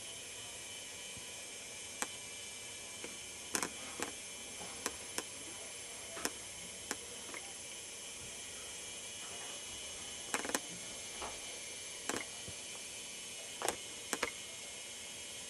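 Steady hiss and hum of a camcorder's own recording noise, broken by about a dozen irregular sharp clicks and taps from the camera being handled.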